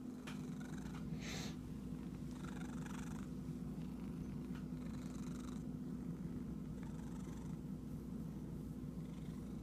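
Domestic cat purring steadily, with soft rustles now and then from a hand scratching its fur.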